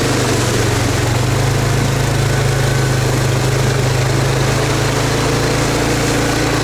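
Car engine running at a steady speed, a constant low drone with an even hum.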